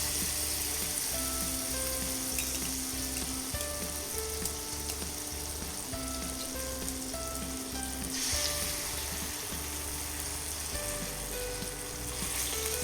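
Marinated chicken breast sizzling as it pan-fries, scored side down, in medium-hot oil: a steady frying hiss that grows brighter about two-thirds of the way through. Soft background music with a steady beat plays underneath.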